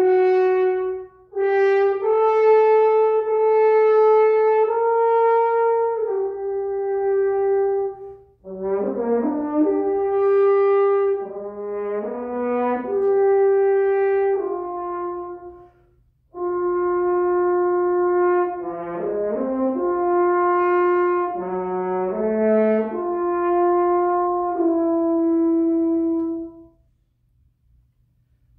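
Solo French horn playing unaccompanied: held notes in phrases broken by short breaths, with quick upward runs leading into some of them. The playing stops about two seconds before the end.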